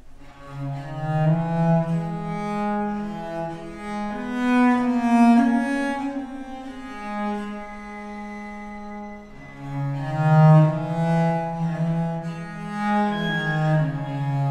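Viola da gamba and violin playing slow, long-held bowed notes, the lowest line strongest, swelling and fading, with a brief lull about nine seconds in.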